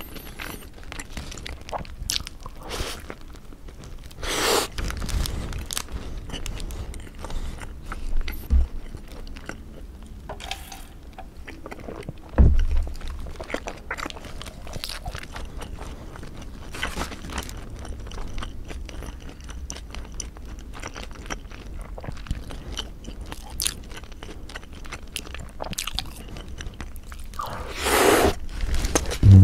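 Close-miked biting and chewing of a squid burger, with soft crunches and wet mouth sounds. Near the end the paper wrapper rustles as the burger is set down.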